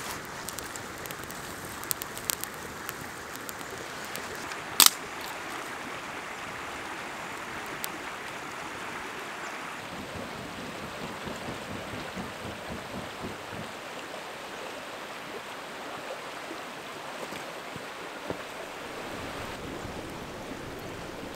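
Steady rush of a river running over rocks, with scattered crackles from a small campfire of dry grass and twigs catching. One sharp snap about five seconds in stands out above the rest.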